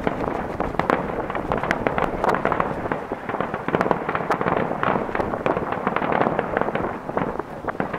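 Aerial fireworks shells bursting in quick succession: a dense barrage of sharp cracks and bangs with crackling in between.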